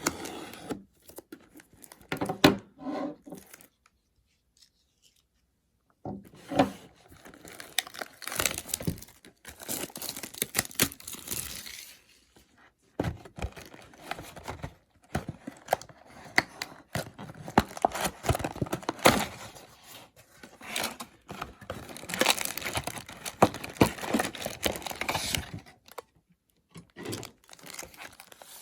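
Plastic shrink wrap crinkling and tearing off a sealed trading-card hobby box, in bursts of crackling with short pauses.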